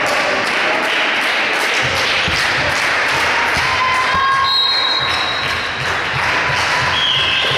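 Volleyball hall ambience: steady crowd and hall noise with scattered low thumps. Near the end comes a short, steady high whistle tone, the kind the referee blows to signal the serve.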